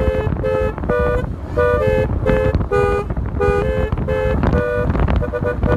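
Basuri telolet multi-tone horn on a motorcycle playing a tune: a string of short two-tone blasts that change pitch from note to note, ending in a quick stutter of very short notes, over a low rumble.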